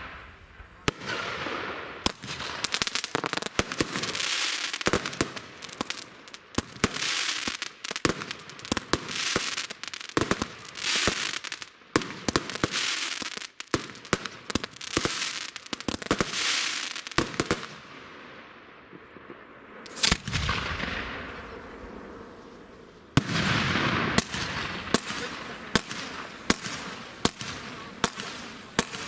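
Fireworks going off: many sharp bangs over hissing crackle. There is a quieter lull after about 18 seconds, then a fresh rapid run of bangs and crackling starts about 23 seconds in.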